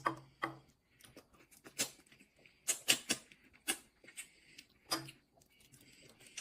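Wet clicks and squishes of soy-sauce marinated raw crab being picked apart by hand, a string of short sharp ones with quiet gaps between.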